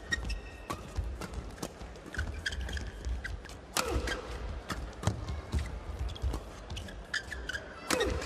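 Badminton doubles rally: a fast run of sharp racket hits on the shuttlecock, with short shoe squeaks on the court mat about four seconds in and again near the end.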